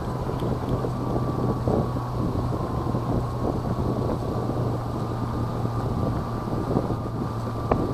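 Wind buffeting the microphone over a steady low mechanical hum, with a faint steady high tone and a few light knocks.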